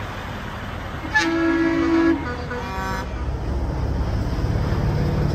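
A truck air horn sounds one loud blast of about a second, followed by a shorter, fainter blast; then the low rumble of a heavy truck's diesel engine grows louder as it passes.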